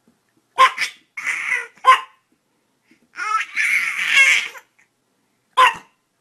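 A Chihuahua giving short, high yaps, a few in the first two seconds and one more near the end, while a baby laughs twice in between, the second laugh longer.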